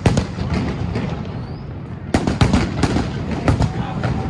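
Fireworks and firecrackers going off: loud, sharp cracks in irregular clusters, one right at the start and a dense run of pops from about halfway through.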